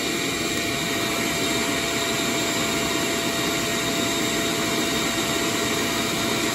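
Shop vac and heat gun running together under heavy electrical load: a steady whooshing whir with a thin steady tone in it.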